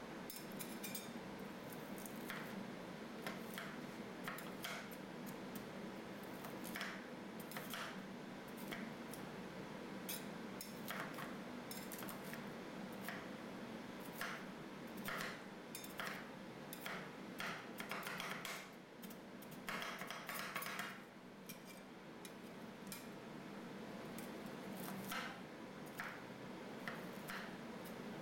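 Two metal spatulas chopping bitter gourd slices on a steel ice cream roll plate: rapid, irregular clacks of the blades striking the plate, with a stretch of scraping a little past the middle. A steady low hum runs underneath.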